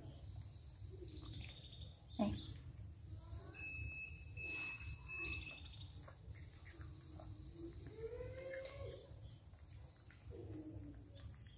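Young macaques giving short squeaks and coos, scattered calls that rise and fall, the loudest a falling squeal about two seconds in and a longer drawn-out coo about eight seconds in.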